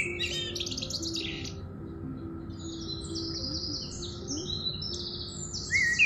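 Small songbirds chirping in quick high trills, with a short pause a couple of seconds in, over soft background music with long held low notes.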